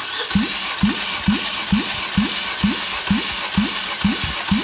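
Nissan MR20DE 2.0-litre four-cylinder engine being cranked over with its spark plugs out for a compression test, with a steady whir and a pulse about twice a second, each pulse rising briefly in pitch, as the gauged cylinder comes up on compression.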